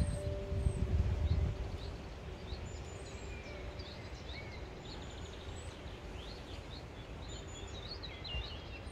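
Several wild birds singing and calling, with many short chirps and whistles, over a faint steady low hum. A low rumble of wind on the microphone in the first second or so.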